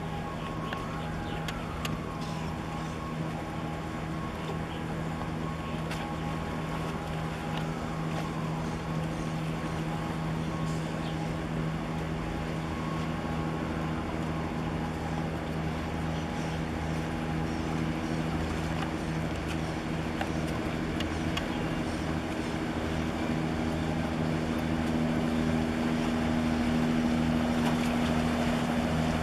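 Steady drone of boat diesel engines across the water, getting louder over the last few seconds as a small harbour workboat runs past close by.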